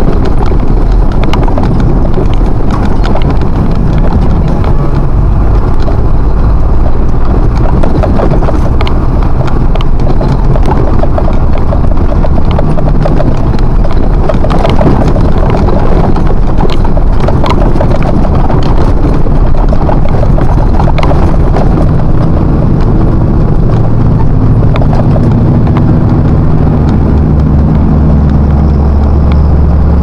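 Truck engine running under way, with clattering cab rattles over a steady drone. The low engine drone grows stronger near the end.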